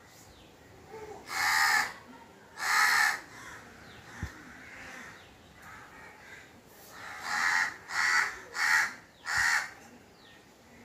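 Crow cawing: two harsh caws, a pause of a few seconds, then four caws in quick succession.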